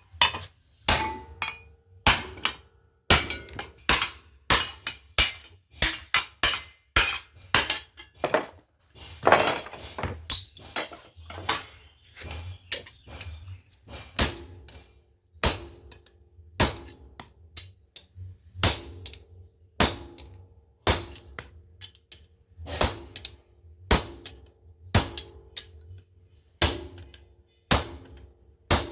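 Hammer blows on a blacksmith's chisel cutting iron: sharp ringing metal strikes, about one to two a second, kept up steadily, over a steady low hum.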